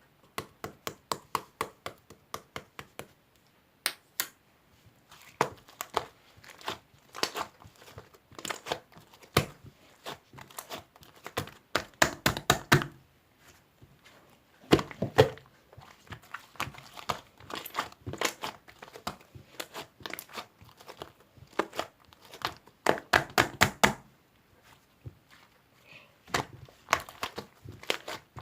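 Soft slime being squished and poked by hand, giving bursts of rapid crackling clicks and pops with short pauses between them.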